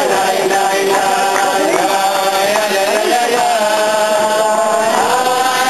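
Voices singing a slow chant-like melody with held notes that glide gently in pitch.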